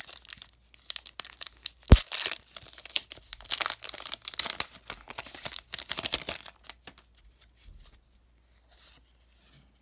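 Foil Pokémon booster pack wrapper being torn open and crinkled in the hands, with one sharp click about two seconds in. The crinkling stops near the end, leaving only faint handling sounds.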